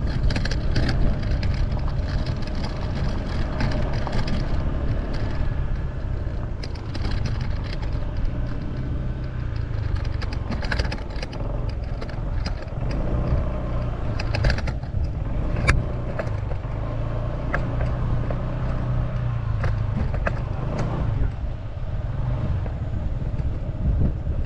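Honda ADV150 scooter's single-cylinder engine running steadily as it rides along a rough dirt track, with scattered sharp clicks and crunches from the loose surface under the tyres.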